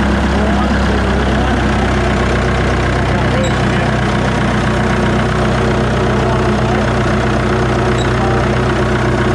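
Large wood chipper's engine running steadily at a constant speed, a loud, even low hum with no revving.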